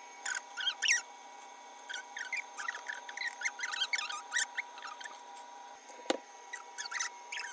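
Many short, high-pitched squeaks and chirps in quick irregular succession, mouse-like, over a faint steady whine, with one sharp knock about six seconds in.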